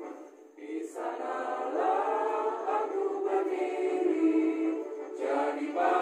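A group of people singing together, a slow song in long held notes, with a short break just after the start before the singing picks up again about a second in.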